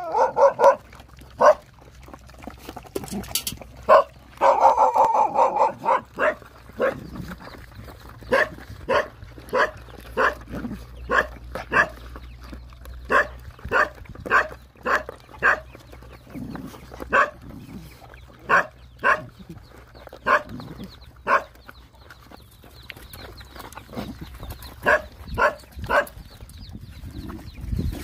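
Dogs and puppies feeding together at a shared pan, giving short yelps about twice a second for much of the time, with a longer whining call about five seconds in.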